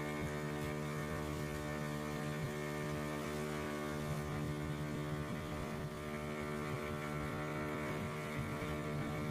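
Steady drone of a boat engine running at speed, its pitch holding even throughout, heard from aboard a boat on the river.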